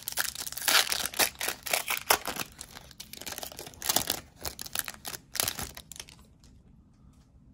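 Foil trading-card pack torn open by hand, its wrapper crinkling in a quick, uneven run of crackles that stops about six seconds in.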